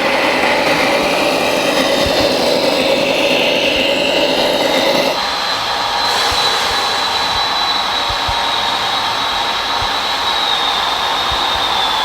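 Steady whine of radio-controlled model construction machines' electric motors and gearing. The sound changes abruptly about five seconds in to a higher, thinner whine that drops slightly near the end.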